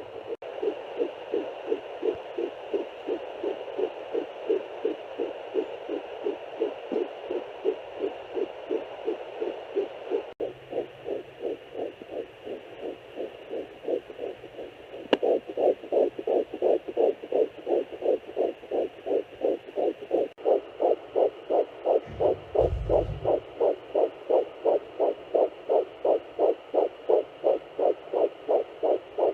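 Fetal heartbeat at 8 to 10 weeks played through a home fetal Doppler: a fast, even pulse of about two and a half to three beats a second. It breaks off and resumes a few times as separate recordings follow one another, louder in the second half. A brief low thump comes about 22 seconds in.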